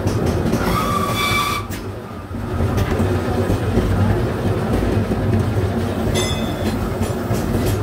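Hydraulic press for forming stainless steel stove sheets, running with a steady low hum. A short high-pitched squeal comes about a second in and a shorter one a little after six seconds, while the press's die opens.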